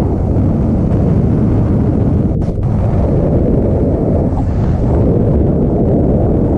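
Freefall wind blasting over a skydiver's camera microphone: a loud, steady low rumble of wind buffeting.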